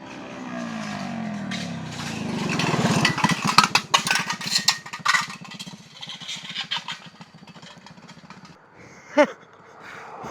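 Motorcycle engine slowing down, its pitch falling over the first few seconds. A burst of knocks and rattles follows, then the engine idles steadily, with one short sharp call near the end.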